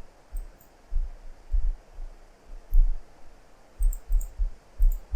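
Irregular low thuds, about eight of them, with faint clicks among them: handling of a computer mouse on a desk during mesh editing.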